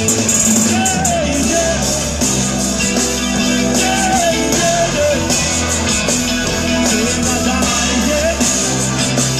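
Live band playing loud music over a stage PA, heard from the crowd: drum kit, electric guitar and keyboards, with a gliding lead melody.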